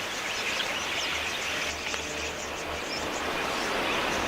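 A large flock of wild budgerigars chattering, a dense steady mass of many short high chirps overlapping.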